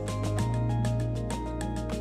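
Background music with a steady percussive beat over a sustained bass line; the bass note changes about half a second in.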